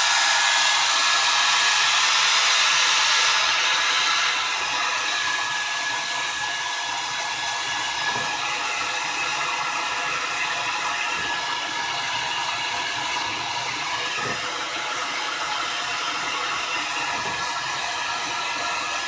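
Old handheld hair dryer running steadily, blowing hot air with a faint steady whine; it gets slightly quieter about four seconds in.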